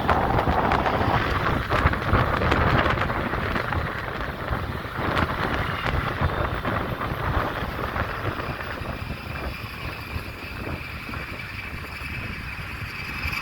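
Road traffic noise with wind buffeting the microphone, louder for the first few seconds and then easing.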